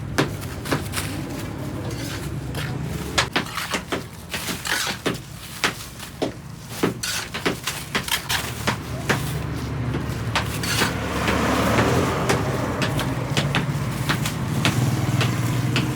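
Machinery running with a steady low hum under frequent irregular sharp knocks and clatter, with a rushing noise swelling up about ten seconds in.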